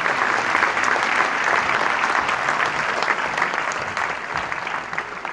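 Audience applauding, dense and steady at first, then thinning and fading near the end.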